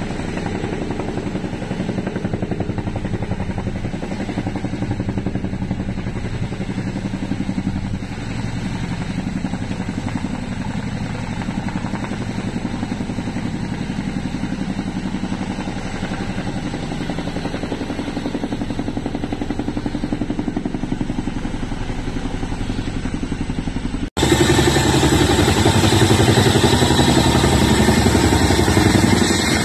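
CH-47 Chinook twin-rotor heavy-lift helicopter hovering close by: steady heavy rotor and turbine noise with a fast, even blade beat. About 24 seconds in it cuts abruptly to a louder recording of the helicopter flying low past.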